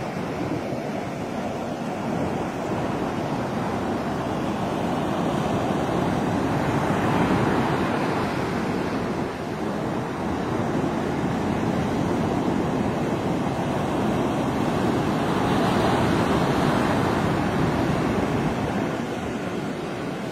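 Surf breaking on a sandy beach: a steady wash of waves, swelling louder about a third of the way in and again later.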